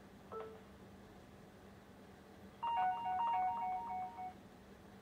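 Electronic beeps from a household device: a short falling two-note beep, then about halfway through a quick jingle of pure steady tones lasting about a second and a half, over a faint steady hum.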